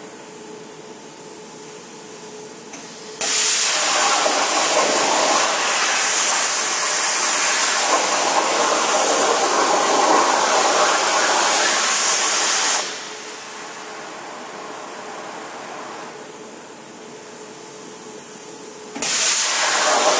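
Thermal Dynamics plasma cutter's arc cutting 20 mm mild steel: a loud, steady hiss that starts suddenly about three seconds in, stops abruptly about ten seconds later, and starts again near the end. Between the cuts there is only a quieter steady hum.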